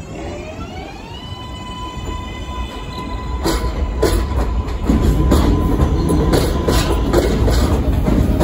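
New York City Subway L train pulling out of the station. Its electric traction motors whine, rising in pitch for about a second and then holding steady. From about three and a half seconds in, the rumble grows louder and the wheels clack over rail joints as the train picks up speed.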